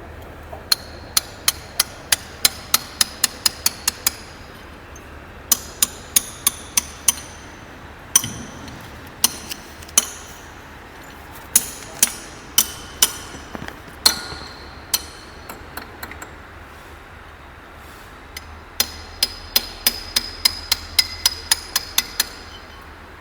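A hammer striking the metal locking plates of a locomotive axle box to fold them over. The blows come in quick runs of about three a second, each with a brief metallic ring, with pauses and single blows between the runs.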